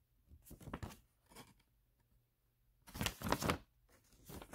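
Folded paper instruction leaflet rustling and crackling as it is unfolded and handled, in a few short bursts, the loudest about three seconds in.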